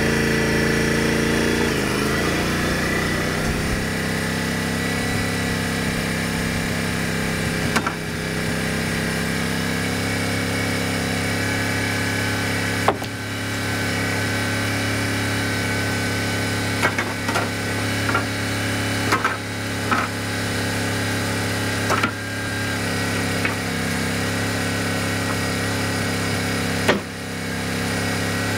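Wood-Mizer LT35 portable sawmill's engine dropping in speed in the first few seconds, then running steadily. Over it come short wooden knocks and clacks from sawn pine boards being handled, the sharpest about halfway through and near the end.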